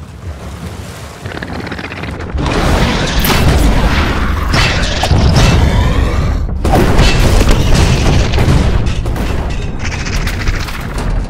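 Animated monster-fight sound effects: heavy booming and rumbling that jumps much louder about two seconds in, breaks off briefly midway, then carries on.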